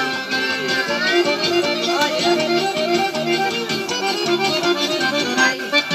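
Forró music playing, an accordion carrying the tune over a steady beat.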